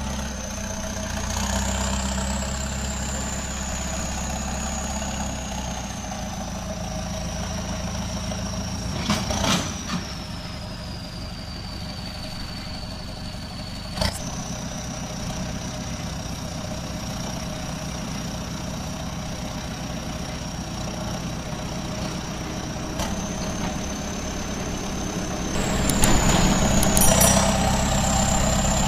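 Steady vehicle engine-like running: a low rumble under a thin high whine that drifts slowly up and down in pitch. Two sharp clicks come midway, and the sound grows louder near the end.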